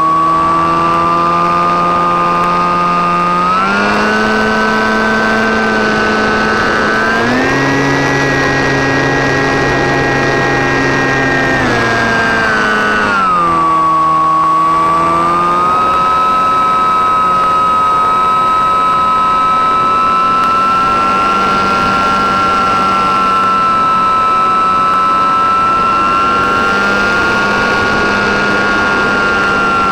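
Model Cessna 337's motor and propellers droning in flight, heard from the onboard camera. The pitch steps up about four seconds in and again from about seven to twelve seconds as the throttle is opened. Around thirteen seconds it glides back down, then holds steady.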